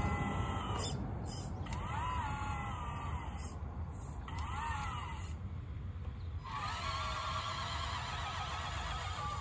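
Motors of a 1:14 scale RC Caterpillar 988 wheel loader whining in short bursts that rise and fall in pitch, twice, then holding a steady, slightly wavering whine for the last few seconds.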